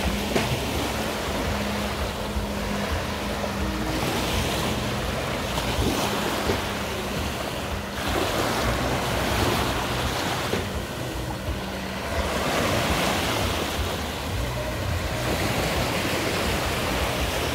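Small waves washing onto the shore, the hiss swelling roughly every four seconds, with wind on the microphone. Under it runs a faint steady low hum of boat engines offshore.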